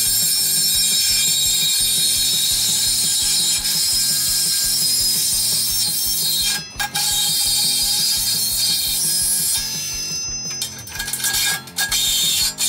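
Milwaukee M18 Fuel Sawzall reciprocating saw with a Diablo carbide-tipped blade cutting through a quarter-inch-thick steel I-beam: a loud, steady, fast metallic rasping and rattling. It stops briefly a little over halfway through, and again in a few short breaks near the end.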